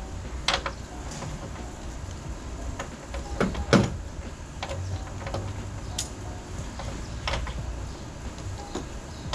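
Scattered metallic clicks and knocks of a socket and breaker bar working the 14 mm top mount bolts of a car's rear strut, the loudest about four seconds in, over a low steady rumble.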